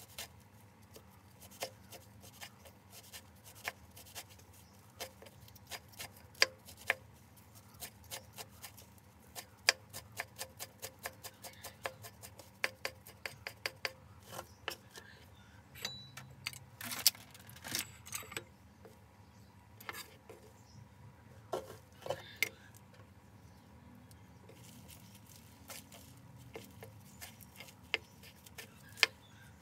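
Kitchen knife chopping fresh lá mơ (skunkvine) leaves on a round wooden chopping board: sharp knocks of the blade on the wood, several a second in uneven runs, with short pauses as the leaves are gathered back into a heap.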